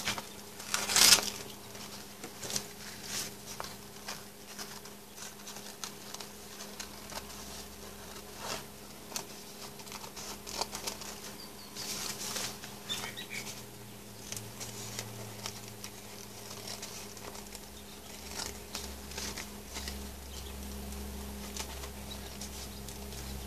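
Scissors snipping around a dictionary page glued to a paper napkin, with paper rustling as the sheet is handled, loudest about a second in. A faint steady hum runs underneath.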